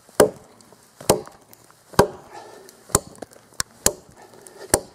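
Cold Steel Trail Hawk tomahawk chopping into a dead log: about seven sharp strikes of steel into wood, roughly one a second, with a couple of lighter ones in quick succession near the end.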